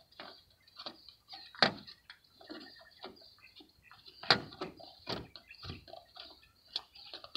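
Sharp clicks and light knocks of small metal parts being handled as the assembly jig is worked loose on a small tensegrity table. The two loudest knocks come about a second and a half in and just after four seconds, with softer taps between.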